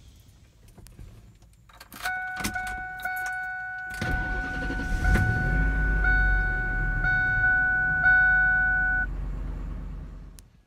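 Ford F-150 pickup engine cranked and started, then running with a low rumble, while a steady high warning tone sounds in the cab. The tone stops about a second before the rumble fades out.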